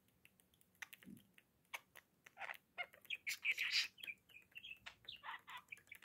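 Budgerigar chattering and warbling in short, quick phrases, loudest around the middle. Light ticks in the first two seconds, from its claws and beak on the windowsill.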